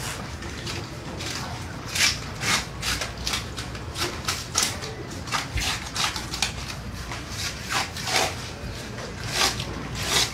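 A knife cutting under a pirarucu's thick, scaly hide as the hide is pulled away from the flesh. An irregular run of short, sharp strokes, a couple a second.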